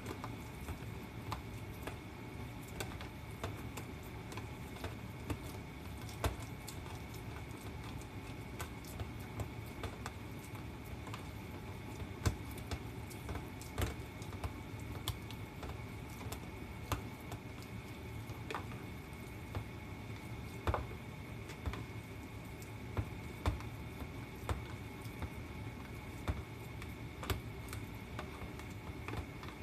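Hands kneading raw minced chicken in a plastic food container: irregular soft squishes and small clicks and taps of the container, over a steady background hum.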